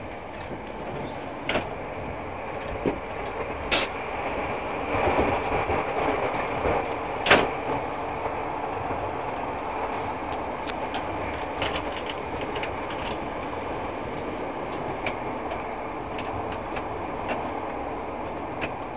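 Russian long-distance passenger train running, heard from inside the carriage: a steady rumbling rush with sharp knocks, the loudest about seven seconds in, and a run of small rattling ticks later on.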